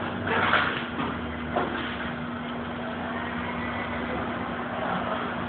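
A steady low mechanical hum, with a short louder sound about half a second in.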